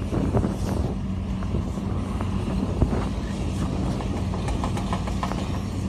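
A steady low engine hum, like a machine running at idle, with a few faint clicks.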